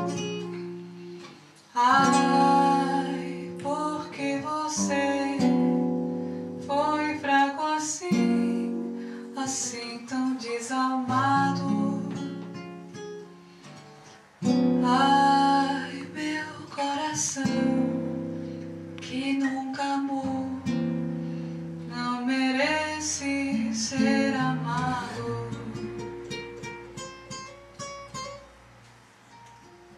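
Acoustic guitar playing plucked and strummed chords, with a woman's voice singing a melody over it. The music gets quieter near the end.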